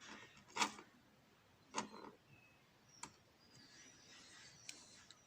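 A few light clicks and taps, roughly a second apart, from small metal lock parts being handled while a pin tumbler lock is taken apart, with a faint scratching in between.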